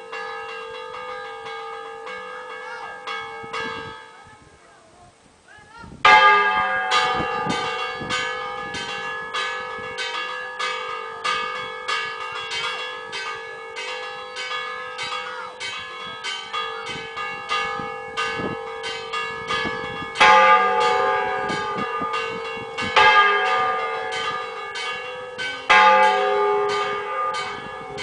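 Church bells rung for a saint's feast day: several bells of different pitches struck in quick succession, their tones overlapping. The ringing dies away about four seconds in, then starts again loudly about six seconds in, with heavier accented strokes near the end.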